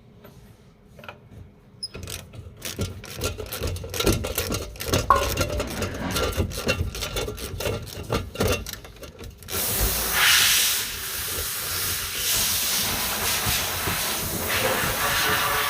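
Metal tools clicking and scraping on car suspension parts, then a steady loud hiss that starts suddenly about ten seconds in and keeps going.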